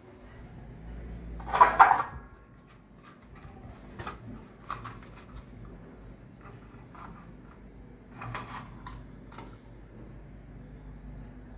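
Scattered light knocks and clicks from handling around a water pump's pressure switch and pipe fittings, with one louder brief sound near two seconds in, while the pump itself is stopped.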